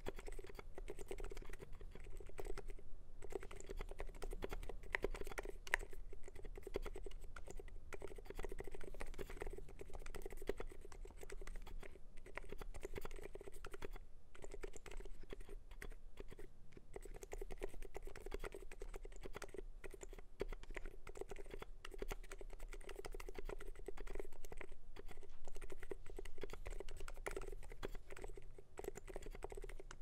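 Continuous fast typing on a YMDK YMD75v3 mechanical keyboard fitted with lubed Durock Dolphin silent linear switches and DSA dye-sub keycaps. It makes a dense, steady stream of keystrokes with only a few very brief pauses.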